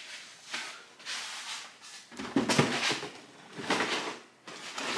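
A cardboard cereal box being taken down and handled, giving a series of short scraping and rustling sounds.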